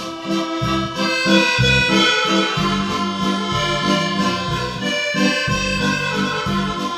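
Background instrumental music with an accordion-like melody over a steady rhythmic bass.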